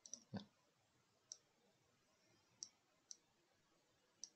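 Computer mouse button clicking, about six faint single clicks spread a second or so apart; the one about half a second in is heavier, with a low thud.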